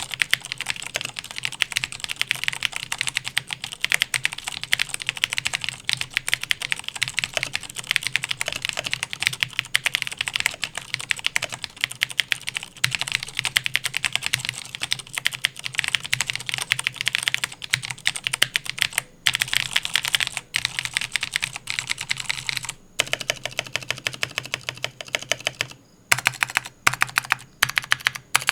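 Razer BlackWidow Ultimate (2013) mechanical keyboard with clicky Cherry MX Blue switches, ten years into heavy use, being typed on fast and continuously. Near the end the typing breaks into shorter bursts with brief pauses.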